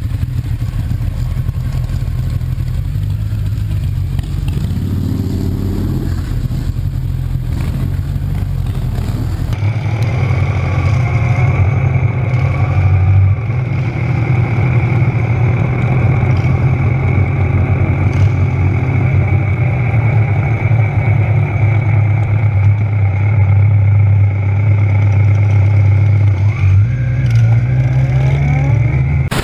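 Motorcycle engines idling with a steady low rumble, with a short rise in pitch about five seconds in and another rev near the end. About ten seconds in the sound changes abruptly and a steady high whine joins the idle.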